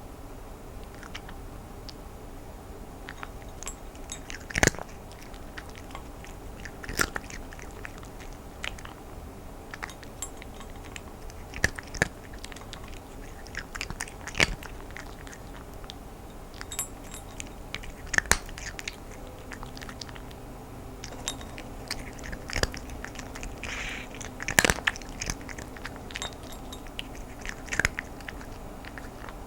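A cat eating dry kibble, close up: irregular sharp crunches as it bites and chews the pellets, every second or two, with a few louder cracks.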